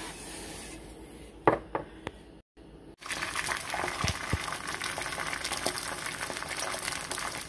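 An egg frying sunny side up in a light film of oil in a nonstick aluminum skillet, sizzling with fine crackles; the sizzling starts after a brief break about three seconds in. Before it, a faint hiss and one sharp knock.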